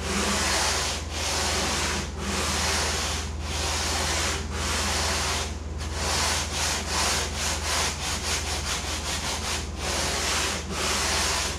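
A hand sanding block rubbed back and forth over pink foam insulation board, beveling a foam kayak hull. Long strokes of about a second each give way to quick short strokes around six seconds in, then slow again near the end.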